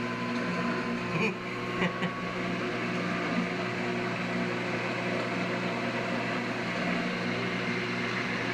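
GE top-load washing machine in the spin cycle, its drum turning at the lower, early spin speed with a steady motor hum. It runs smoothly with no grinding, a new bearing shield fitted after the repair. There are a couple of faint clicks near the start.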